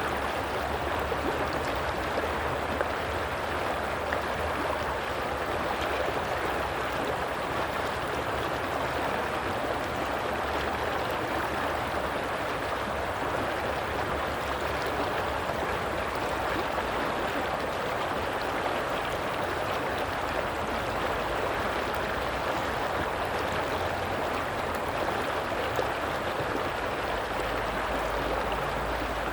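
Flowing stream water rushing and babbling steadily, without pause.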